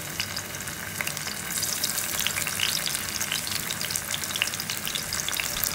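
Thin potato slices shallow-frying in a little hot oil in a pan: a steady sizzle with many small crackles, growing busier about a second and a half in.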